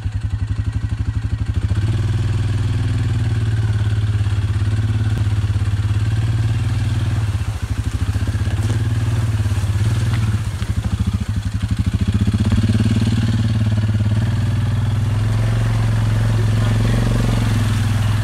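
Suzuki ATV engine running under steady throttle while riding, easing off briefly twice in the middle before picking back up.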